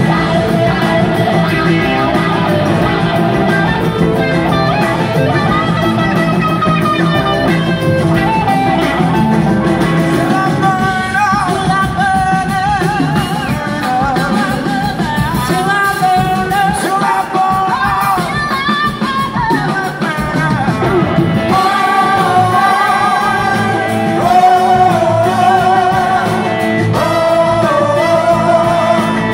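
Live rock band playing loudly, with electric guitars, drums and singing.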